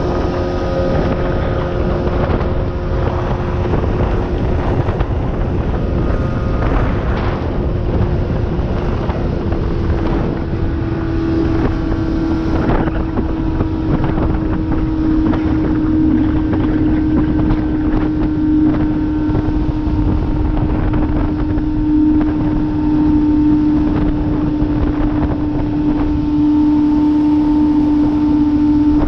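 Outboard motor of a 16-foot Bass Tracker boat running steadily under way, its pitch easing slightly lower about a third of the way in, with wind noise on the microphone.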